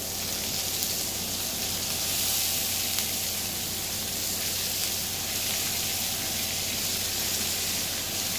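Chopped cabbage frying in hot bacon grease in a skillet: a steady sizzle as handfuls of cabbage are dropped into the pan.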